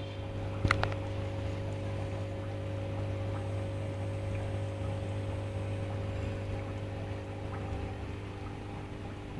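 Steady electrical hum of an aquarium pump, a low drone with a few higher steady tones over it. A brief cluster of sharp clicks comes under a second in.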